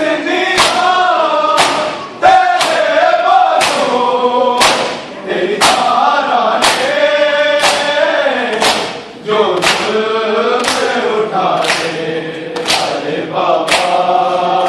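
Men's voices chanting a nauha (Shia lamentation) together, with the sharp slaps of bare-handed chest-beating (matam) landing in a steady rhythm along with the chant.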